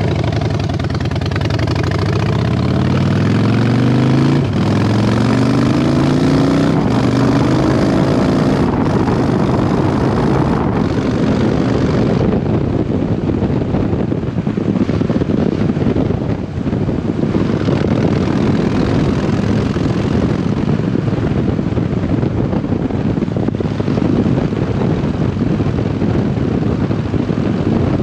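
2007 Harley-Davidson Dyna Super Glide Custom's 1584 cc V-twin through a Vance & Hines exhaust, accelerating up through the gears. The pitch climbs in each gear and drops back at four shifts over the first eleven seconds or so, then the bike settles into a steady cruise.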